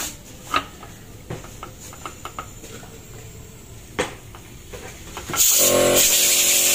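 Light metal clicks and knocks as a vacuum pump is handled and seated against an engine's aluminium timing cover. About five and a half seconds in, a loud steady hiss with a hum starts suddenly and keeps going.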